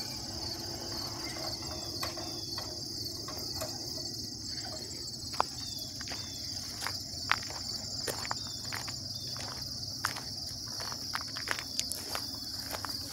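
Steady high-pitched chorus of insects, with footsteps crunching on gravel and scattered sharp clicks, the two loudest near the middle.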